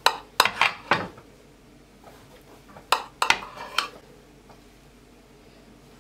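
Metal kitchen knife clinking against a ceramic plate while a slice of cake is cut free: two quick clusters of sharp clicks, one at the start and another about three seconds in.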